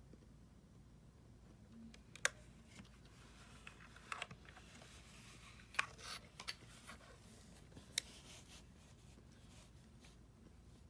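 A few scattered keystrokes on a mechanical keyboard with PBT keycaps and Cherry MX Brown switches. There are sharp clacks about two, four, six and eight seconds in, with fainter taps between.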